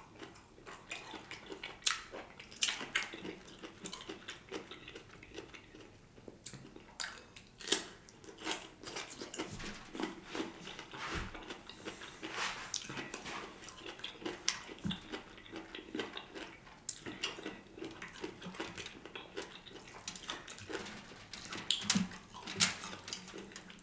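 Chewing and mouth sounds of a man eating a smoked turkey leg: irregular wet clicks and smacks as he bites and tears meat from the bone.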